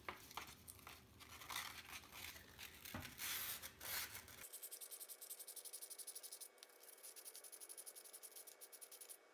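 280-grit sandpaper rubbed by hand round a small insert of a Steyr AUG receiver, easing a part that fits too tightly. The strokes are irregular at first, then about halfway through turn into a quick, even rhythm.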